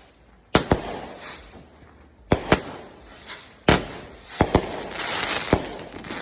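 Consumer fireworks going off: a string of sharp bangs, several in quick pairs, with a crackling hiss filling in after about four seconds.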